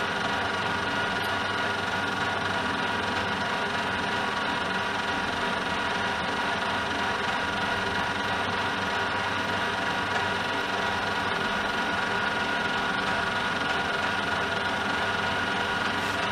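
Metal lathe running steadily under power, its geared headstock giving an even whine of several steady tones over a mechanical rumble, during centre drilling of an aluminium insert.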